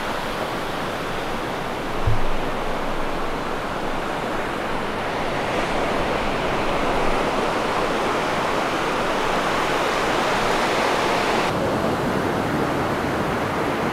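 Ocean surf washing onto a sandy beach, a steady rushing hiss, with a brief low thump about two seconds in. Near the end the sound turns duller.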